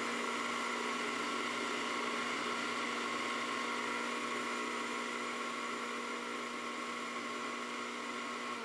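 Countertop blender running steadily at one speed, puréeing cooked chicken and green beans with water into baby food; its motor begins to wind down at the very end.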